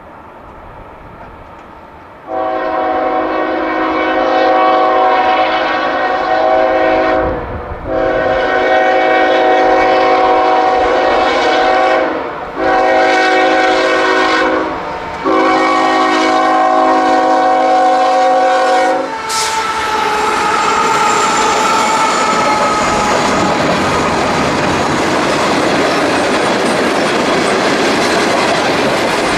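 A diesel locomotive's multi-chime air horn sounds four blasts, long, long, short, long, the grade-crossing signal, as the train approaches. Then the locomotive and cars pass close by, wheels clattering and rushing over the rails.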